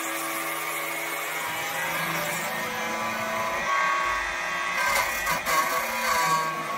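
Electric bat-shaping machine running with a steady motor whine while its cutter shaves wood from a cricket bat blade. The cutting grows louder and rougher from about halfway through.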